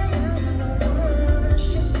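Live band music with a singer's voice carrying a wavering melody over heavy, steady bass.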